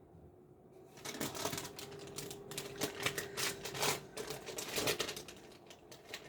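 Rapid, irregular clicking and rattling of small hard objects being handled, starting about a second in.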